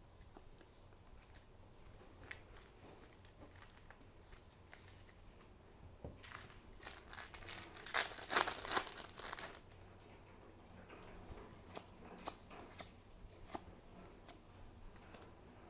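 Packaging from a trading-card kit crinkling and tearing for about three seconds, loudest around the middle, with light clicks and rustles of cards being handled before and after.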